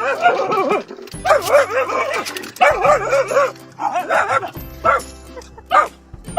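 A dog barking and yipping in several bursts of quick, rising-and-falling calls, over background music.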